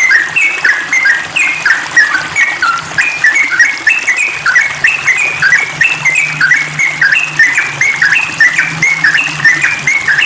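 Yellow-vented bulbul singing rapidly and without pause, a continuous run of short bubbly notes several times a second. A faint low hum joins a little under halfway through.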